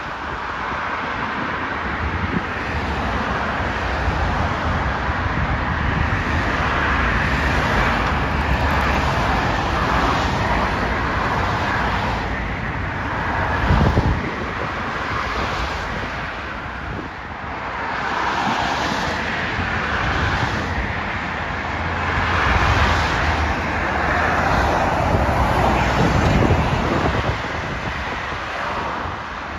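Busy road traffic: cars, vans and buses passing close by in a steady stream, the noise swelling as each heavier vehicle goes past. A single brief thump about halfway through.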